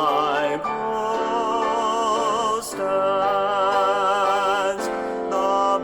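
A hymn being sung, with long notes held and sung with vibrato, the pitch changing every second or two.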